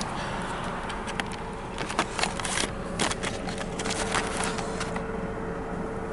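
Car idling with a steady low rumble and a faint steady hum, while a scattering of short sharp clicks and rattles, like something being handled close to the microphone, comes between about one and five seconds in.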